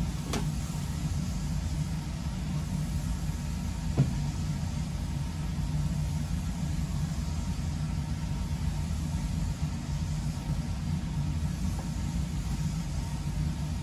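Steady low mechanical hum, with a couple of faint clicks, one near the start and one about four seconds in.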